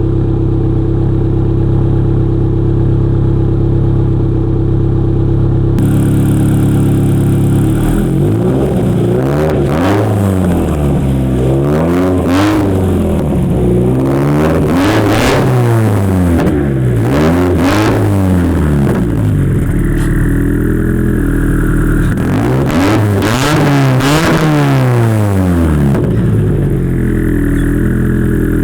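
Turbocharged Subaru BRZ's flat-four engine through a Nameless catback exhaust (Nameless mid pipe and track pipe). It idles steadily, then is blipped in a long string of quick revs, each one rising and falling sharply, and settles back to idle near the end.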